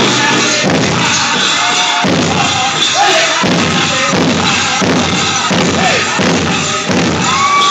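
Powwow drum group singing over a big drum: a steady, even drumbeat under high, wavering voices that swoop up and down.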